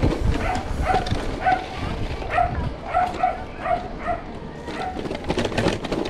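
A dog barking in a series of about ten short barks over a steady low rumble.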